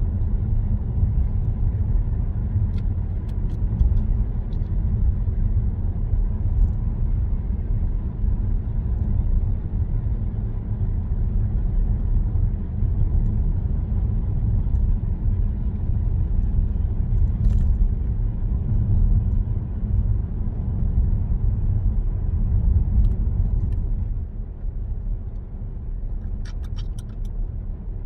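Car interior noise while driving: a steady low rumble of tyres on the road and the engine, easing a little near the end, with a few faint ticks.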